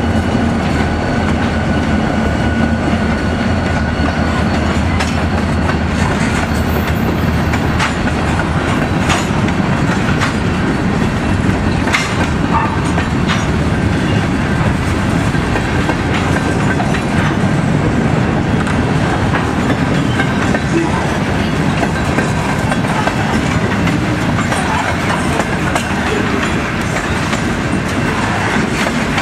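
Freight cars of a long train rolling past close by: a steady, loud rumble of wheels on rail, with irregular clicks and clatter as the wheels pass over the rail joints.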